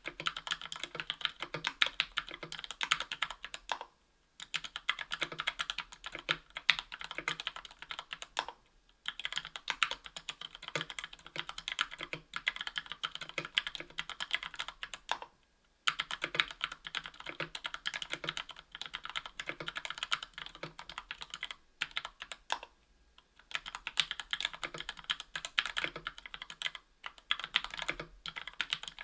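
Mechanical keyboard typing: Gateron Yellow Ink 60 g linear switches lubed with Krytox 205g0, in a KBDfans Tofu 60% aluminium case with an aluminium plate and Cherry-profile PBT keycaps. Fast runs of keystrokes, broken by short pauses about every five seconds.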